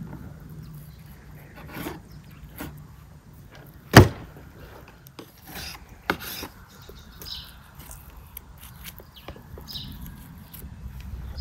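Knife cutting along a raw lamb rib rack on a wooden cutting board: slicing and scraping, with a sharp knock about four seconds in and a smaller one about two seconds later. Birds chirp faintly.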